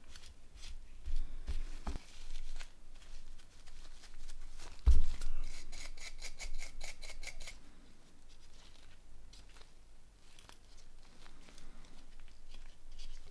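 Quiet scrubbing and scraping as dirt is cleaned off the inside of a mobile phone, with a quick run of rapid strokes from about five to seven and a half seconds in. A few soft handling knocks, the loudest about five seconds in.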